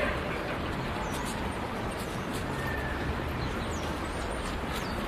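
Wind buffeting the microphone in a low, uneven rumble, with small birds chirping faintly several times in the background.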